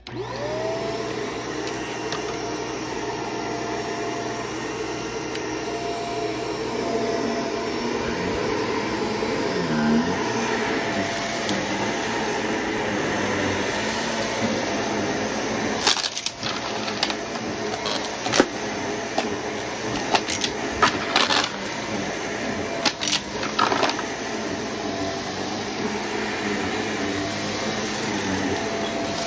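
Shark upright vacuum cleaner switched on, its motor whining up to speed within a second, then running steadily over carpet. About halfway through, for several seconds, sharp clicks and crackles come in as loose debris rattles up through the nozzle.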